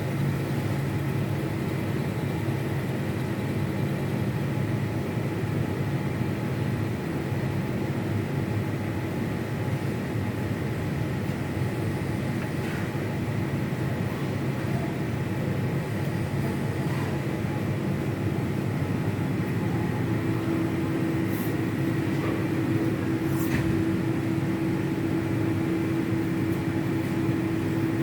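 Ersa ETS 250 wave soldering machine running with a steady mechanical hum; a higher steady tone joins about twenty seconds in, with a few faint ticks after it.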